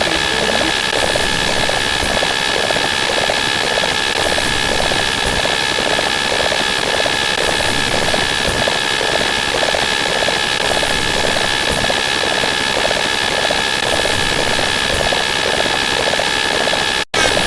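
Loud, continuous engine-like sound effect: a steady high tone over a noisy drone with a regular pulse about three times a second. It cuts out for an instant near the end.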